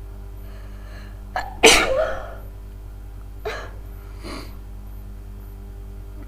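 A woman sneezes once, loudly, about a second and a half in, just after a short sharp intake of breath. Two fainter short sounds follow a couple of seconds later.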